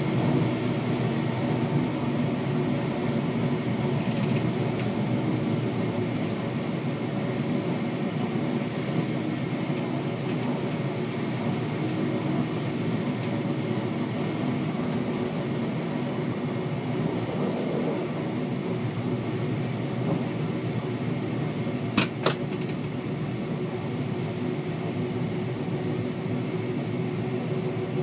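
Steady running noise inside the cab of an NMBS AM62 electric multiple unit under way, a hum with several steady tones over the noise of wheels on rail. Two sharp clicks close together about 22 seconds in.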